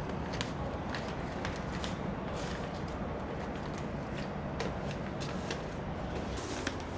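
A sheet of paper handled and rustled, with a few faint crisp rustles, over a steady low background hum.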